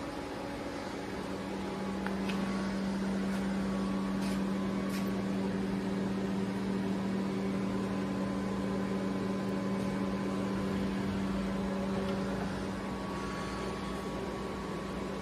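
Steady hum of a switched-on CNC lathe, with fan-like noise and a low drone that swells about a second in and fades near the end. A few faint ticks come through over it.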